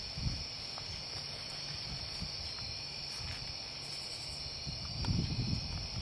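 Crickets in a steady chorus, several high-pitched tones layered together. A low rumble rises briefly at the start and again near the end.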